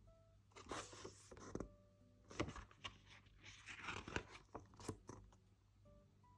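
Paper and plastic album packaging rustling and scraping as a photo book is opened by hand, in two spells, one about a second long and a longer one of about three seconds, with a few sharp clicks.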